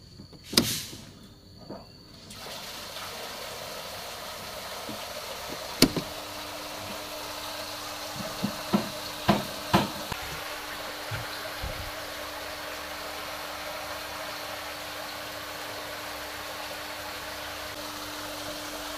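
Sharp clicks of circuit breakers and the RCCB being switched on in a water-pump control panel, with the pump cables disconnected. About six seconds in, a steady low electrical hum from the energised panel starts and holds, and more switch clicks follow a few seconds later. A steady rushing hiss runs underneath. The RCCB holds without tripping, which points the fault at one of the lightning-struck water pumps or its cable.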